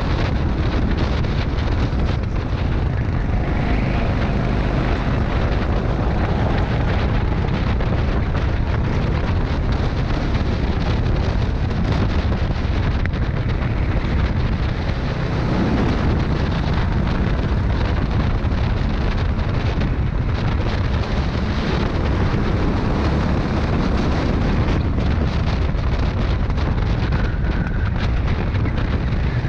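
Rental go-kart running at racing speed, heard from a camera mounted on the kart: steady engine noise mixed with heavy wind buffeting on the microphone.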